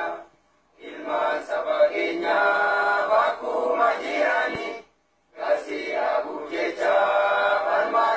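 A group of voices singing a hymn together in sung phrases, breaking off briefly twice.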